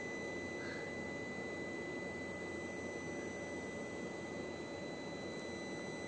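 Room tone: a steady low hum with a thin, unchanging high-pitched whine.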